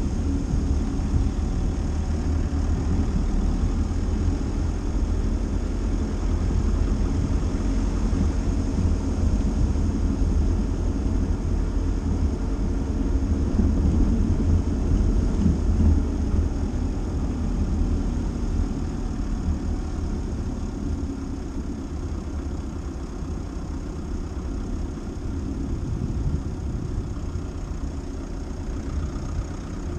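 Dacia Duster driving: a steady low engine and road rumble that eases slightly in the second half.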